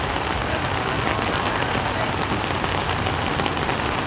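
Steady rain falling, a dense even hiss with no let-up.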